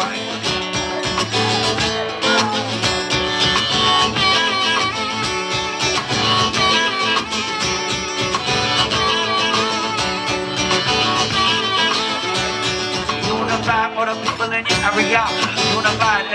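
Live band music: an acoustic guitar strummed along with a drum kit keeping a steady beat.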